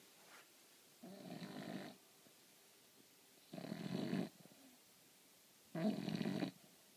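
English bulldog snoring in its sleep: three snores about two and a half seconds apart, each under a second long, and each louder than the one before.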